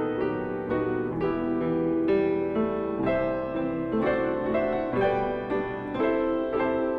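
Piano playing an instrumental interlude, a steady run of notes and chords with a new note struck about every half second.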